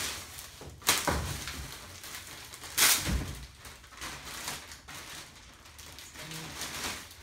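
Clear plastic packaging wrap rustling and crinkling as it is handled and pulled off a kayak seat, with two louder crackles, about one second and about three seconds in, and a dull thump just after the second.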